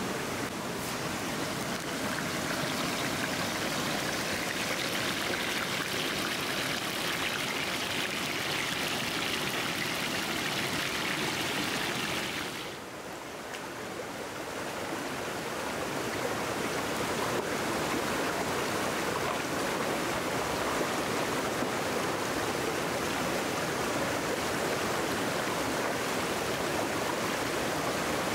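Shallow stream rushing over rocks, a steady rush of running water that dips briefly about halfway through and then comes back.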